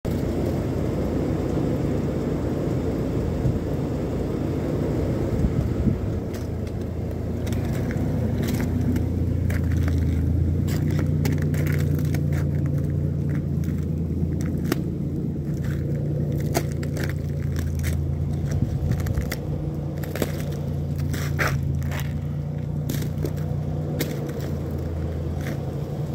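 Footsteps crunching and crackling through ice-crusted snow, a dense run of sharp irregular cracks from about six seconds in, over a steady low hum.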